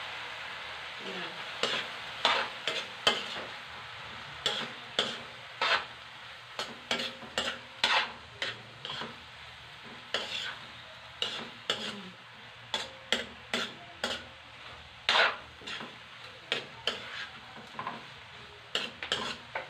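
Metal spatula scraping and clanking against a steel wok as meat toppings for pancit are stir-fried, roughly one or two strokes a second, over a steady frying sizzle that is strongest at the start and eases somewhat.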